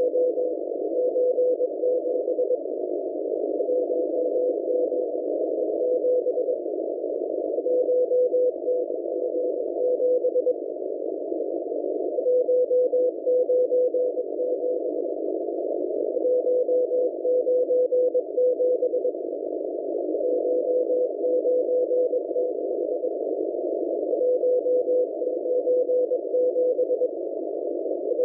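M01 Morse code numbers station received on shortwave: a single beeping tone keyed in groups of dots and dashes, each group lasting two or three seconds with short pauses between, over a steady hiss of radio static narrowed by the receiver's filter.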